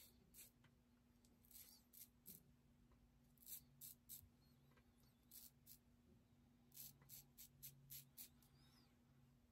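Faint, short scratchy strokes of an Everyday Shaving magnetic safety razor cutting stubble, irregular at first and then a quick run of about five strokes near the end.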